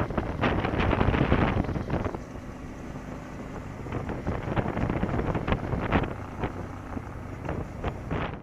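Wind rushing and buffeting over the microphone of a moving motorcycle, with the engine running underneath. The wind noise drops markedly about two seconds in, leaving a quieter rush with occasional gusts.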